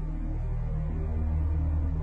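Background music from a drama score: sustained low notes held steadily.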